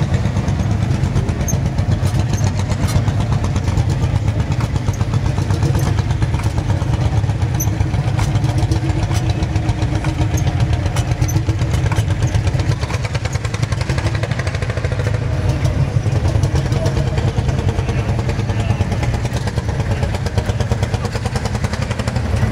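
Lanz Bulldog single-cylinder two-stroke hot-bulb engine running steadily, its firing pulses coming in a rapid, even beat.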